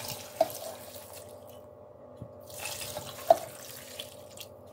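Water running into a cooking pot full of fresh pine shoots in two short pours, with a sharp clink of the pot or vessel about three seconds in and a lighter one near the start.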